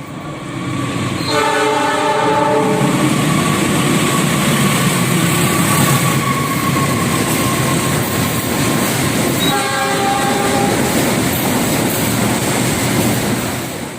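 Train air horn sounding twice over the steady rumble and clatter of a passing train: a blast of about a second and a half just over a second in, and a shorter one near the ten-second mark.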